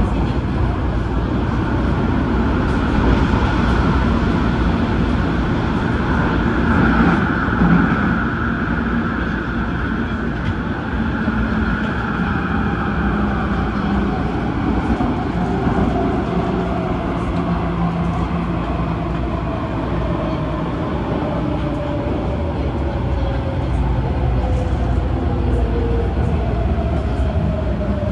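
Adtranz-CAF electric multiple unit running on the Tung Chung Line, with a steady wheel-on-rail rumble and traction motor whine. In the second half the whine falls slowly in pitch as the train slows.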